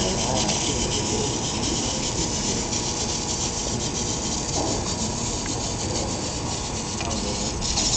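Micromouse maze robot running through the maze: a steady, scratchy hiss from its small drive motors and wheels.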